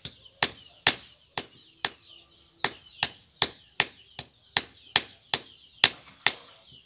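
Knife chopping through raw chicken feet, a steady series of about sixteen sharp chops, two or three a second, with a short pause about two seconds in.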